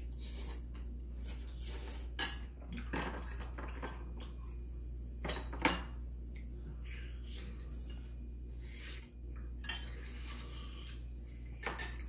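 Chopsticks and spoons clinking against ceramic bowls and plates while people eat, a few sharp clinks spread through, two close together about halfway.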